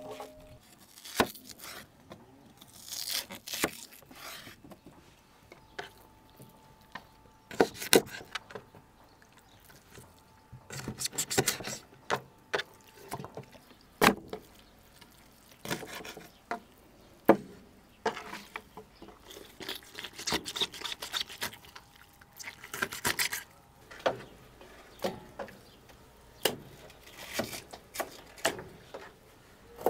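Knives cutting up raw chicken on a wooden cutting board: irregular knocks of the blade on the board between short scraping and wet rubbing sounds as the meat is sliced and handled.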